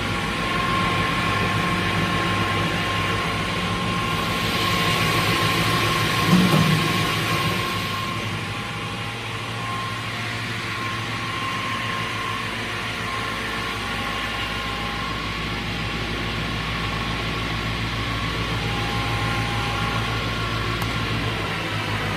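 Brodpol WP200 two-shaft multi-rip saw running, with a steady whine. It gets louder for a few seconds about a quarter of the way through, with a brief knock in the middle of that stretch.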